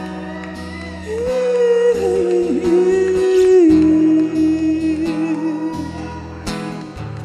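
Worship song: a voice holding long, wavering sung notes without clear words over steady instrumental accompaniment with a bass line.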